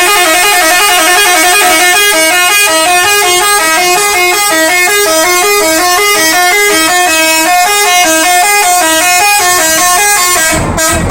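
Bus telolet horn, a multi-tone musical air horn, playing a quick tune of short stepped notes that change several times a second, with a brief break near the end.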